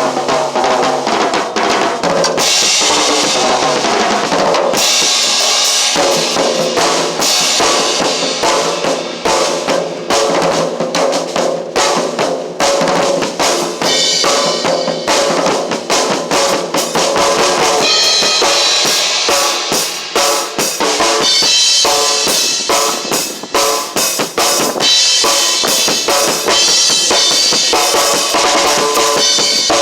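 Drum kit played continuously in a dense groove, with many quick strikes on the bass drum, snare and cymbals.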